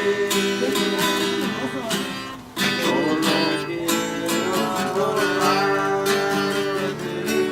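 Acoustic guitar strummed in a steady rhythm while people sing a chorus together. A brief break about two and a half seconds in, then the strumming and singing go on.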